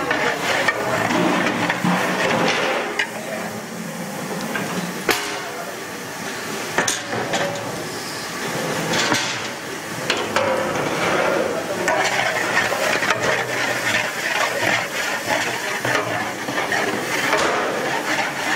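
Hot oil sizzling in a large metal cooking pot while a long metal ladle stirs and scrapes it, with sharp clanks of the ladle against the pot now and then.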